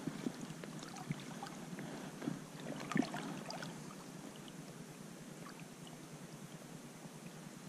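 Faint outdoor ambience, a steady soft hiss, with a few light clicks and knocks in the first three seconds, the loudest about three seconds in.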